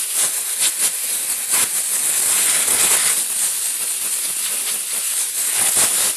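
Compressed-air blow gun blasting air through a riding mower's pleated paper air filter to clear loose dirt: a loud, continuous hiss with an uneven rattle, cutting off suddenly near the end.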